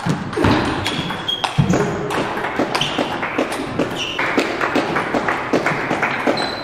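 Table tennis rally: the ball clicking off the rackets and bouncing on the table in quick succession, with a few short high pings. Two heavier low thuds come about half a second and a second and a half in.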